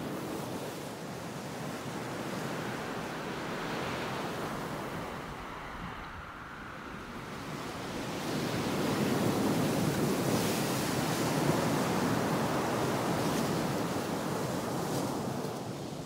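A steady rushing noise with no pitch to it, swelling louder about halfway through and easing off near the end.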